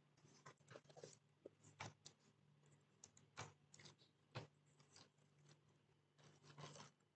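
Faint computer-keyboard typing: irregular key clicks, some in quick runs, over a low steady hum.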